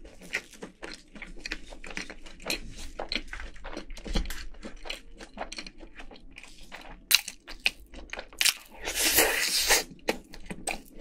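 Close-miked chewing of crispy fried chicken, with frequent short, sharp crunches. Near the end there is a longer hissing, rustling noise lasting about a second.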